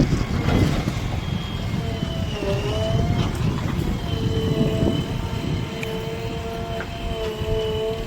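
Heavy diesel machinery engine running under load, a low rumble with a steady whine over it. The whine's pitch dips briefly about two and a half seconds in, then holds steady.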